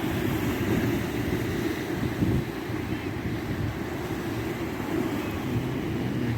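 Wind buffeting the microphone, a steady rumbling noise, with surf washing on the rocks behind it.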